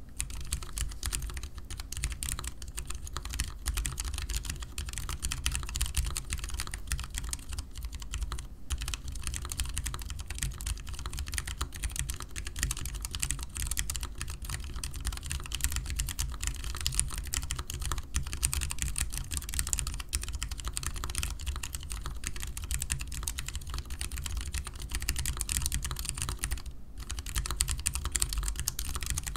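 Typing on a Vortex Core 40% keyboard with lubed Cherry MX Clear tactile switches, swapped to Gateron Yellow springs and lubed with 205g0, under dye-sub DSA keycaps. It is a fast, steady stream of key presses, with short pauses about eight seconds in and again near the end.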